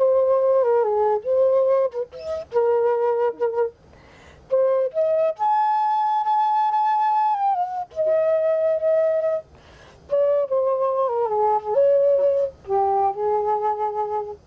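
Solo flute playing a melody of held and stepping notes, one note at a time, with short pauses between phrases; the longest note is held for about two seconds near the middle, and the music ends right at the close.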